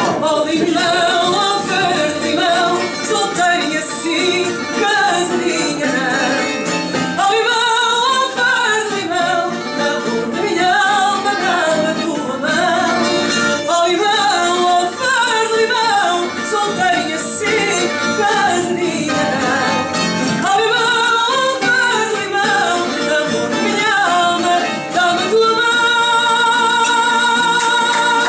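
Live fado singing with guitar accompaniment. The singer's voice wavers through the melody and ends on a long held note with vibrato near the end.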